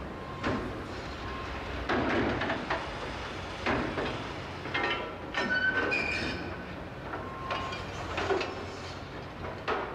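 Hydraulic demolition shear on an excavator biting into a concrete bridge deck: irregular crunches and clanks of breaking concrete and steel every second or two, with a short high metallic screech about five and a half seconds in, over the steady hum of the excavator's engine.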